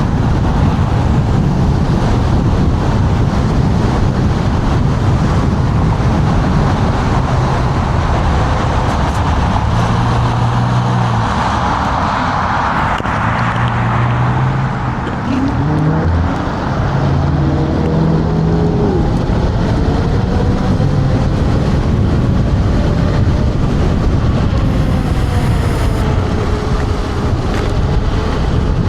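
Wind rumbling on the rider's microphone during an electric scooter ride at speed, with road noise. Several faint whines glide up and down in pitch in the second half.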